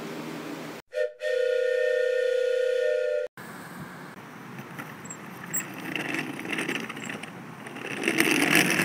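A train whistle sounds as one steady chord of several held tones for about two seconds, starting and stopping abruptly after a short steady hum. Then comes a rough, noisy rattle that grows louder near the end.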